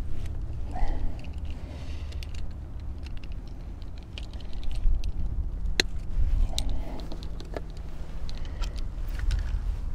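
Plastic fish lip-gripper clicking and rattling as it is worked open and clamped onto a smallmouth bass's jaw to weigh the fish, a series of sharp irregular clicks over a steady low rumble.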